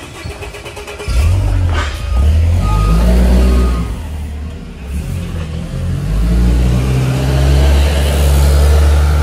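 A vehicle engine running close by: a loud low rumble that comes in about a second in, dips briefly near the middle and swells again.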